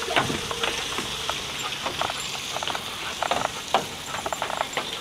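Irregular knocks, scuffs and clicks of a child's sneakers on the metal platform and steps of a playground climbing structure, with a few short squeaks.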